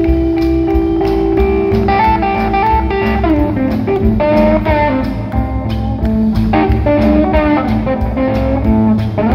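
Live blues-rock band playing an instrumental: an electric guitar holds long notes and bends them, over electric bass and a drum kit.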